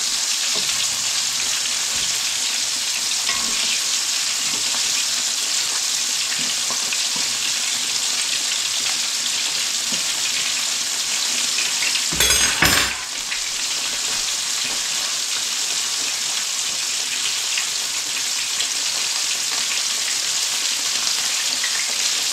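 Chunks of cornmeal-battered crappie deep-frying in grease heated almost to smoking: a steady, even sizzle. A short, louder burst of noise breaks in about halfway through.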